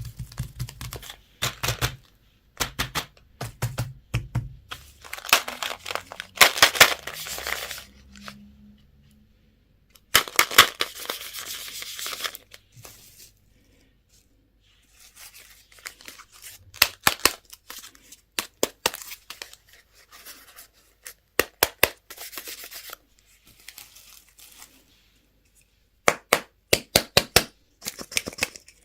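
Plastic candy and toy packaging being torn open and crinkled, with many sharp clicks and taps, in several bouts broken by short pauses.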